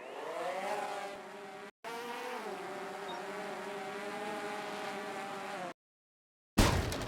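DJI FPV drone's motors and propellers buzzing, rising in pitch at first and then holding fairly steady, with two abrupt cut-offs. Near the end a loud, sudden burst of noise starts and fades away.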